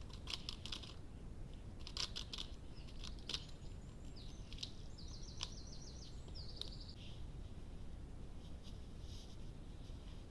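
Faint bird song: a quick trill of high repeated notes in the middle, with a few short, sharp chirps before it, over a steady low hiss.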